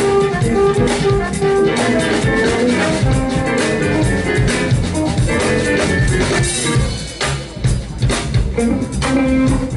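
Live jazz band playing, drum kit to the fore, with electric bass, guitar, keyboards and trombone. About seven seconds in the band drops back briefly, then comes a run of hard drum hits.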